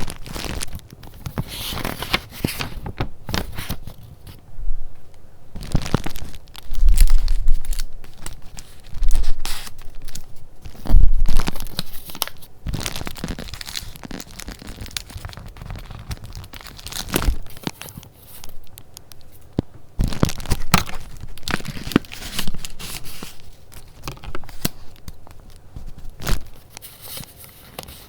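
Paper being handled: irregular rustling and crinkling of sheets and paper goods, with a few louder thuds about seven to eleven seconds in.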